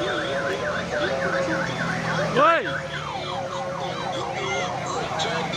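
Electronic siren-style warble from the decorated odong-odong mini tourist train, its pitch sweeping up and down about three times a second. About two and a half seconds in there is one louder rising-and-falling tone, and after it the pattern changes to quick repeated falling sweeps.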